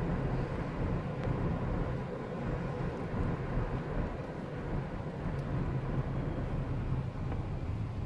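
Steady low rumble of a car driving: road and engine noise heard from inside the car's cabin.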